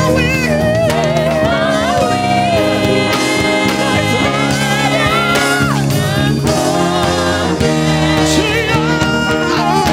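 Slow gospel worship music: sustained chords under a wordless vocal line sung with wide vibrato and sliding pitch.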